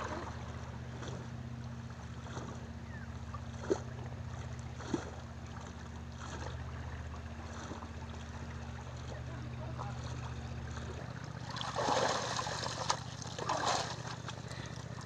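Water sloshing and splashing as a man swims and wades in the sea, with louder splashes about twelve and thirteen and a half seconds in as he comes up out of the water. A low steady hum runs underneath, changing pitch about eleven seconds in.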